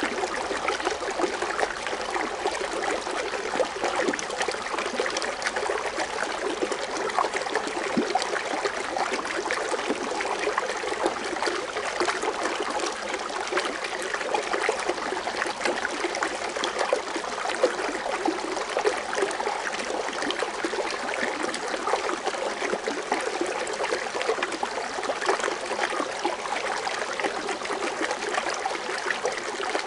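A foaming water fountain: water splashing and trickling in a steady, continuous stream with a fine crackle.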